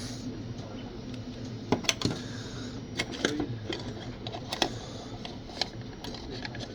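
Scattered sharp clicks and light knocks, about seven in all, most between two and five seconds in, over a steady low hum.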